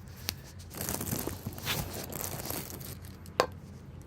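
Rustling and crinkling of a Casio G-Shock watch being handled and put on, with a small click near the start and a single sharp click about three and a half seconds in.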